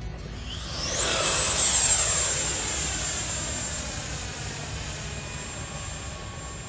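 Radio-controlled model jet flying past: a high whine that climbs in pitch over the first second, is loudest a second or two in, then slowly fades as it flies away.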